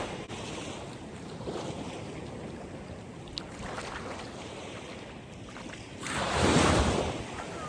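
Sea waves washing on the shore, with one louder wave surging in about six seconds in.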